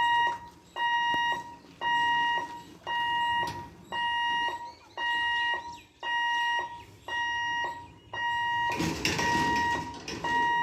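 Railway level-crossing warning alarm sounding a repeated electronic beep, about one beep a second, each lasting just over half a second: the gate's signal that a train is approaching. Near the end there is a brief burst of louder noise alongside the beeps.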